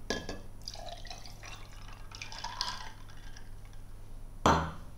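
Red wine poured from a wine glass over ice cubes in a tall glass, splashing and trickling for about three seconds. A single thump near the end.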